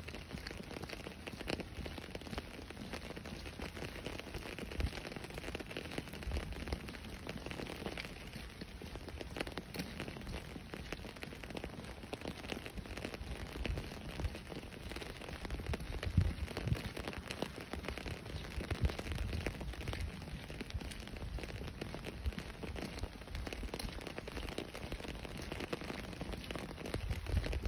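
Steady rain falling on a wet paved street, a dense patter of drops. Occasional low thumps on the microphone stand out above it.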